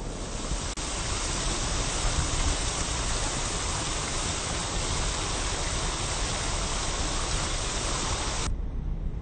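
Rows of fountain jets splashing steadily, a dense even hiss of falling water that cuts off suddenly about eight and a half seconds in, leaving low street traffic rumble underneath.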